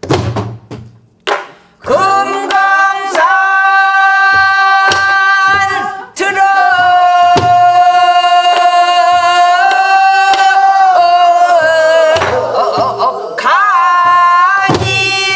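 A woman singing pansori in a strong voice, holding long notes that bend and ornament in pitch, while beating a buk barrel drum with a stick. A few bare drum strokes come first, and the singing enters about two seconds in.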